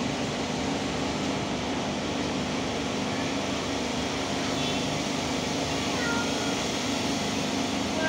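Samsung 7 kg front-load washing machine running with new drum bearings and seal: a steady motor hum and water swishing in the turning drum, with no excess noise from the bearings. A few faint, brief high-pitched calls come in about six seconds in.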